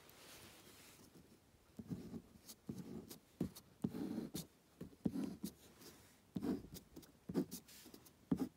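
A pen drawing on paper close to the microphone: short scratchy strokes and small ticks at irregular intervals as lines are drawn, after a soft rustle in the first second.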